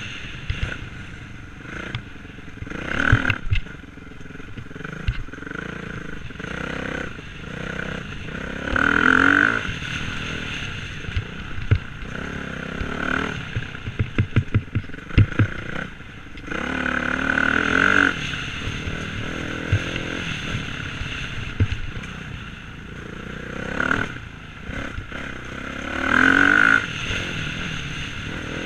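Dirt bike engine running along a trail, swelling in several strong throttle surges and easing off between them. There are sharp rattling knocks in between, a quick cluster of them about halfway through, as the bike goes over bumps.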